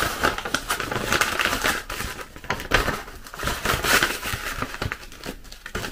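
Crinkling and rustling of a Bionova instant chicory packet being handled, a dense run of small crackles and clicks that thins out near the end.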